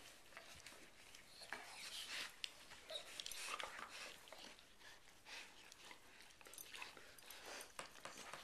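A German shepherd slurping and licking inside another dog's mouth: faint, irregular wet clicks and smacks of tongue and lips.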